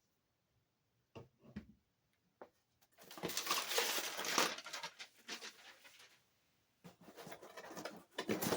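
Handling of items in a product box: a few light knocks, then crinkly rustling of packaging from about three seconds in, easing off and picking up again near the end.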